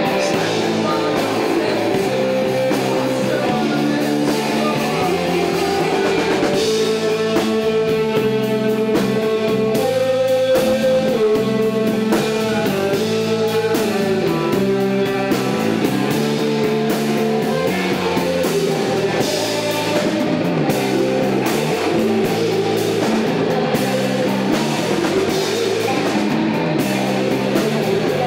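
Rock band playing a song with guitar and drum kit.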